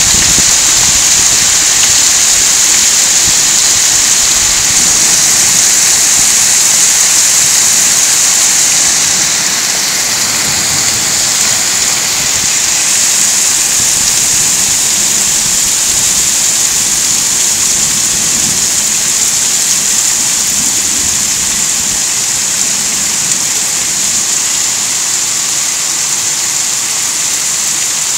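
Hail coming down hard on grass and stony ground: a steady, dense hiss of countless small impacts that eases slightly about ten seconds in.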